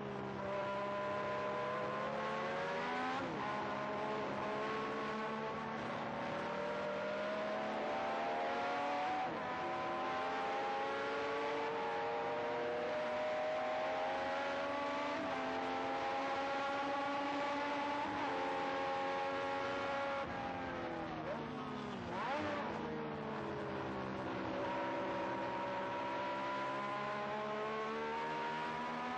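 Engine of a 1978 Ligier Matra Formula One car, a Matra V12, heard onboard at racing speed. It climbs through the gears with brief dips at each upshift and holds a high steady note. About twenty seconds in it falls sharply, with quick blips as it shifts down, then pulls up through the gears again.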